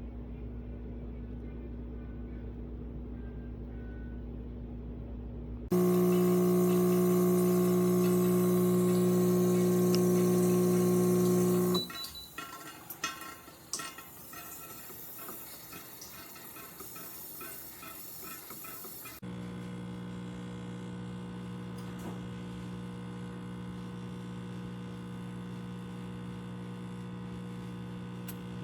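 Electric espresso machine's pump humming steadily with a low buzzing pitch. It is loudest for about six seconds, then cuts out abruptly into a stretch of small clicks and knocks before a steady hum resumes.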